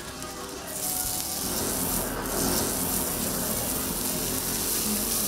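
Food sizzling on a hot flat-top griddle: a steady frying hiss that starts abruptly about a second in.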